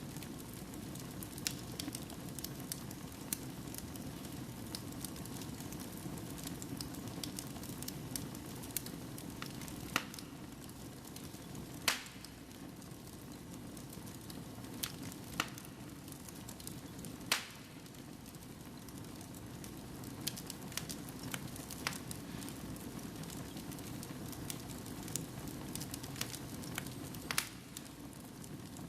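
Wood fire burning in a fireplace: a steady low rush of flame with irregular crackles and pops from the logs, a few sharper pops standing out.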